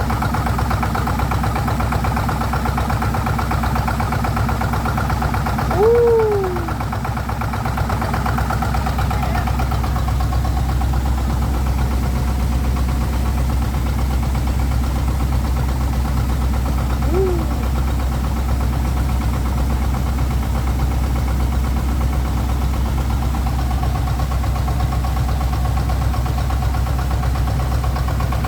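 Excavator engine running steadily at idle. A brief falling tone sounds about six seconds in, and a fainter one near the middle.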